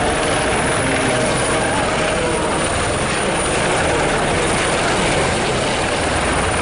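Several Eurocopter EC120 Colibri helicopters hovering and manoeuvring low. Their rotors and turbine engines make a steady, dense wash of noise.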